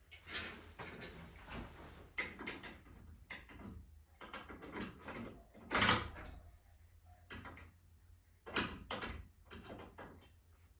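Metal hardware and hand tools being handled: an irregular series of clinks and knocks, loudest about six seconds in and again near nine.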